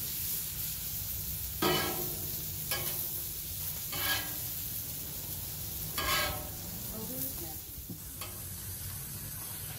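Metal spatula scraping across the steel top of a Blackstone flat-top griddle in four short strokes, over the steady sizzle of burger patties frying.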